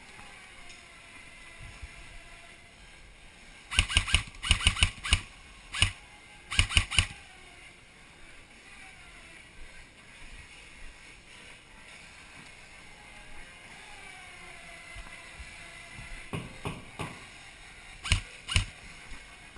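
Airsoft guns firing: a quick run of sharp shots about four seconds in, more around six and seven seconds, then a few scattered single shots near the end.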